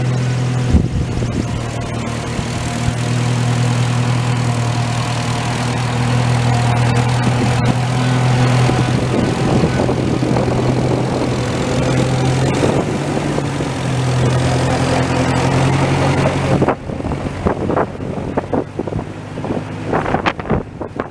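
Massey Ferguson tractor engine running steadily while hauling a log, then shut off abruptly about three-quarters of the way through. Scattered knocks and rustles follow.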